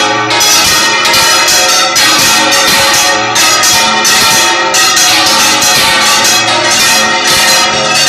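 Church bells pealing continuously, several bells struck in quick succession, about two or three strokes a second, their ringing overlapping.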